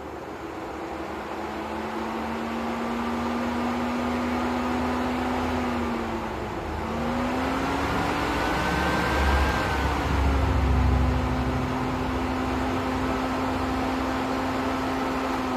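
Mini One R50 electric radiator cooling fan running at low speed through a newly fitted aftermarket fan resistor, a steady whirring hum. Its pitch sags briefly about halfway through, then comes back up. The fan's low-speed running shows the new resistor works.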